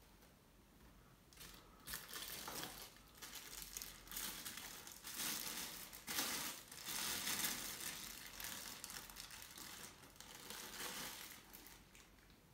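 Clear plastic wrapping and packing paper crinkling and rustling as they are handled, in uneven bursts that start about a second and a half in and ease off near the end.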